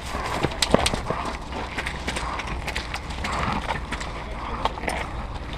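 Irregular sharp clicks and knocks, about a dozen, scattered unevenly, over a steady low rumble.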